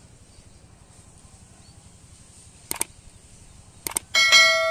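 Subscribe-button overlay sound effect: two quick double clicks, then a bell chime near the end that rings on and fades. Faint outdoor ambience underneath.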